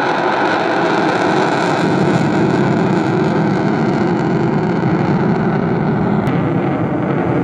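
Loud, steady roar of a military fighter jet's engines as the jet flies past overhead.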